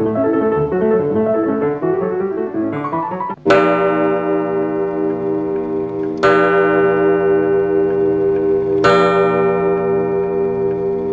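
Keyboard music with a running melody, broken off about three and a half seconds in by a pendulum wall clock striking: three ringing chime strikes, each about two and a half seconds apart and left to ring out.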